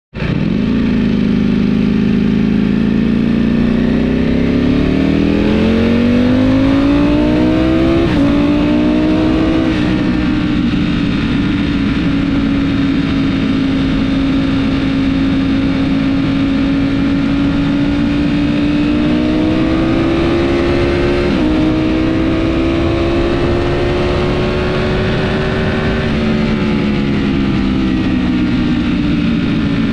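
Ducati Panigale V4S's V4 engine through a full Akrapovic titanium racing exhaust, heard from the rider's seat on the move. The revs climb under acceleration, then drop sharply about eight seconds in at a gear change. The engine then runs at a steady cruise, rises gently twice, and the revs fall back a few seconds before the end.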